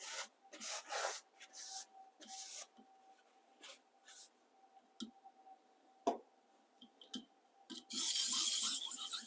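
A 400 grit diamond hone being rubbed clean with a few short scrubbing strokes, then a couple of light knocks. About eight seconds in comes a louder, continuous scraping hiss of metal on the diamond hone.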